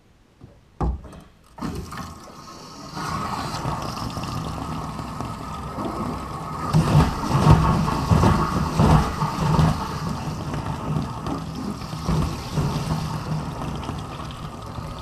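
Water rushing through a supply line into a freshwater holding tank, starting about three seconds in and growing louder. A knock and a few clicks come just before it.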